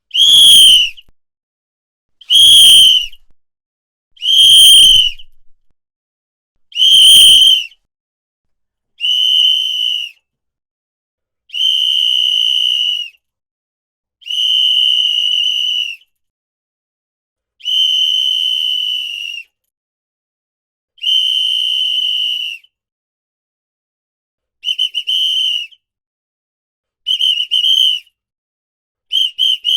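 A whistle blown in a series of separate blasts on one steady high pitch. The first four are short and loud, the next five are longer steady blasts of about a second and a half each, and near the end the blasts come quickly broken up in short chops.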